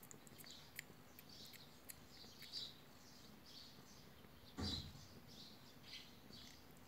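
Faint, high little squeaks and clicks from newborn kittens suckling at their mother cat, with one dull bump a little before five seconds in.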